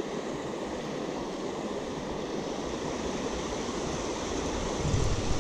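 Steady rush of a small creek's water running over its bed, a continuous even hiss.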